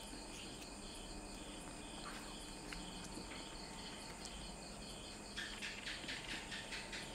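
Crickets chirping faintly and steadily, a pulsed trill repeating at an even pace. Near the end comes a quick run of soft ticks, about five a second, for a second and a half.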